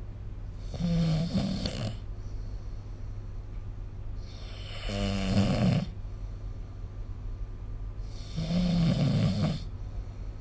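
A sleeping person snoring: three snores about four seconds apart, each a low-pitched snore with a breathy hiss, over a steady low hum.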